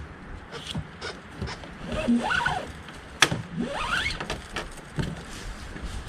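Kayak and camping gear being handled while the boat is loaded: scattered knocks and clicks, one sharp click about three seconds in, and two squeaks that rise in pitch.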